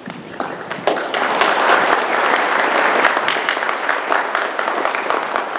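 Large crowd applauding in a gym, the clapping swelling about a second in and easing slightly near the end.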